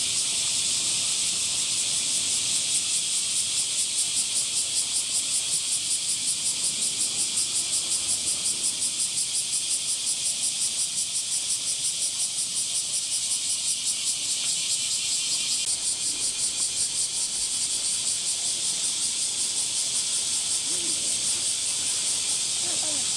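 Cicadas chorusing: a dense, high buzzing that pulses evenly several times a second.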